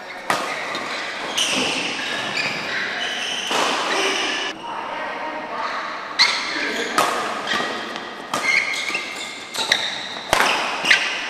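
Doubles badminton rally: rackets strike the shuttlecock in sharp cracks roughly every second, with shoes squeaking on the court mat between hits.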